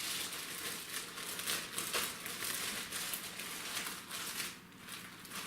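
Small accessory bag crinkling as it is handled and unpacked.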